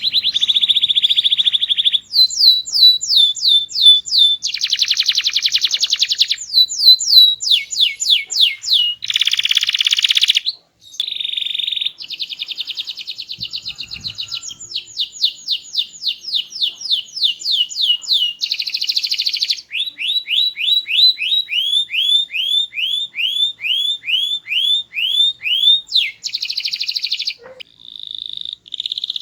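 Domestic canary singing loudly and without pause: a varied song of rapid trills, buzzy rolls and runs of falling whistled notes two or three a second, switching phrase every second or two.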